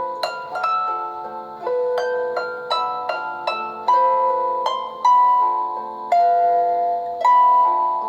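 A Samsung Galaxy S4 stock ringtone playing: a bright melody of sharply struck notes and chords, each ringing and fading, with a new one every half second to a second.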